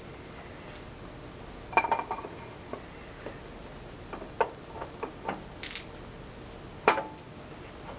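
Scattered metallic clinks and taps as a clutch disc is slid onto an alignment shaft in a 15.5-inch truck clutch flywheel, with a short cluster about two seconds in and the sharpest clink near the end.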